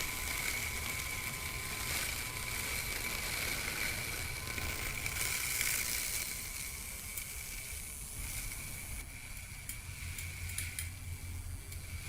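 Small electric cutting motor of a DIY RC lawn mower (a 775 motor salvaged from a cordless drill) running steadily with a high whine, over a hiss of box-cutter blades cutting grass.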